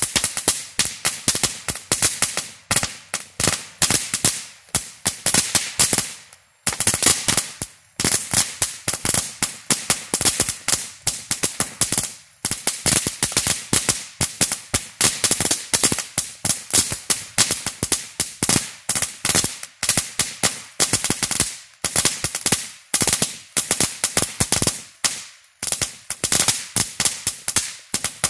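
Dominator Fireworks Crazy Cracklers firework going off, a dense, rapid run of loud sharp cracks and bangs with a few brief lulls.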